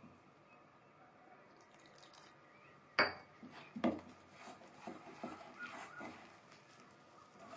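Wet wheat-flour and coconut dough being mixed and squeezed by hand in a stainless steel bowl: soft, quiet handling noise with small scrapes and clicks, and two sharp knocks of the steel bowl, the first about three seconds in and the loudest, another about a second later.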